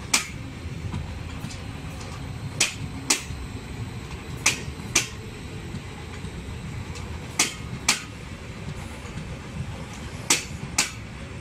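Wheels of a Stadler FLIRT electric multiple unit clacking over a rail joint as it rolls slowly past: two sharp clacks about half a second apart, one per axle of a bogie, repeating about every three seconds over a low rumble.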